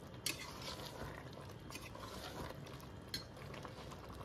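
Steel spoon stirring black chickpeas in a yogurt and oil masala in a metal pot, scraping and clinking lightly against the pot a few times as the masala is fried.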